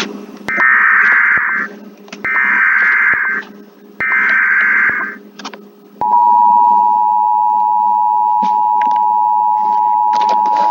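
Emergency Alert System tones: three harsh, buzzy SAME header data bursts about a second each, then, about six seconds in, the steady two-tone EAS attention signal, held for about five seconds.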